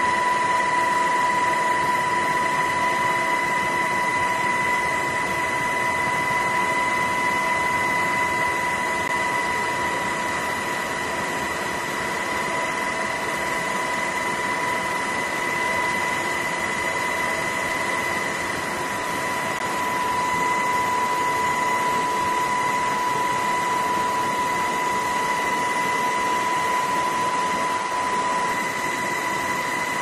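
Steady cabin noise inside a low-flying aircraft: an even rushing hiss under a constant high-pitched whine that holds one pitch throughout.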